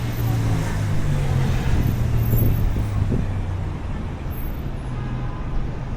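Street traffic: a motor vehicle's engine running close by as a steady low hum, over general road noise.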